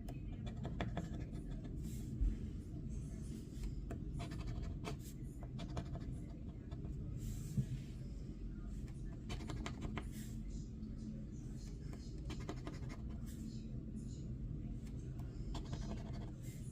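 Scratch-off lottery ticket being scraped, in short bursts of quick strokes with pauses between them, as the coating is rubbed off the crossword letters. A steady low hum runs underneath.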